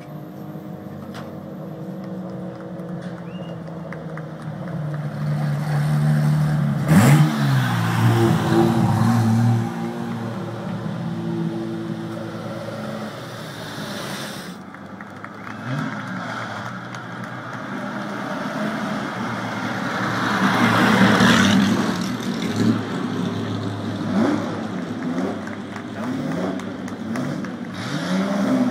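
Several historic racing car engines running and being revved, with a sharp rising rev about seven seconds in and a louder car passing around twenty-one seconds in.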